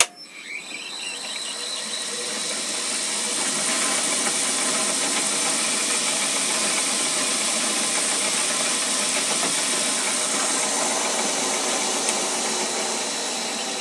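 A switch clicks and the milling machine's spindle motor runs up over a couple of seconds, then runs steadily while a drill is fed down into a metal part to drill a bolt-circle hole and drawn back out. The noise eases slightly near the end.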